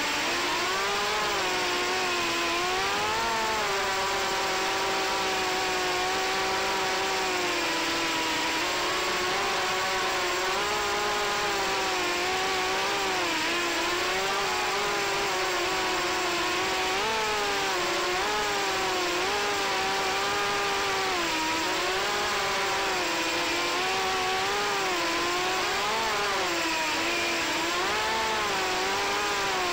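FPV racing quadcopter's brushless motors and propellers whining, heard from the quad's onboard camera. The pitch wavers up and down constantly as the throttle changes.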